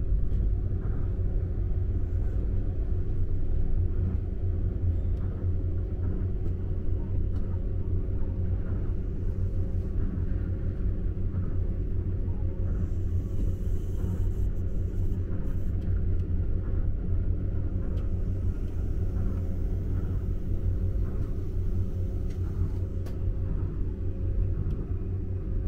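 Tokyo Monorail train running, heard from inside the car: a steady low rumble with a steady hum over it. It eases off a little near the end as the train enters the station.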